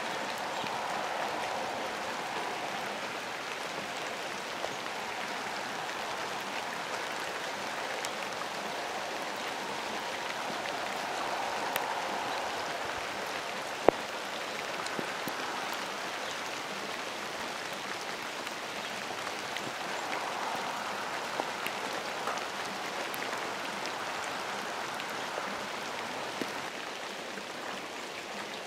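Steady rain falling: an even hiss with scattered drop ticks, and one sharp click about halfway through.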